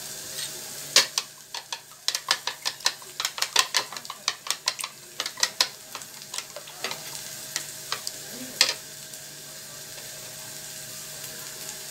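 A hand squeezing and mixing cubes of white bread into raw eggs in a bowl: a run of quick wet squelches and taps, about three or four a second, that stop a few seconds before the end. A steady hiss runs underneath.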